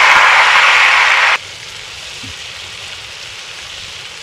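Fish fillets sizzling as they fry in hot butter in a pan. The sizzle is loud at first and drops suddenly to a quieter sizzle about a second and a half in.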